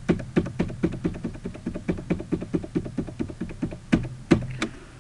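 Computer keyboard keys struck rapidly and repeatedly, about five clicks a second, with three harder strokes near the end.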